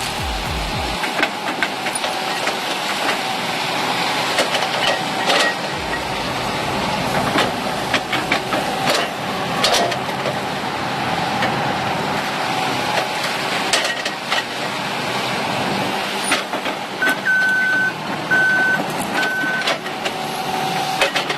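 Heavy machine working: an engine running steadily with scattered clanks and knocks, and a reversing alarm beeping three times near the end.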